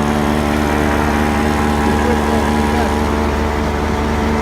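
Drilling-rig machinery running steadily: a loud, constant mechanical hum with a strong steady tone and a low rumble beneath.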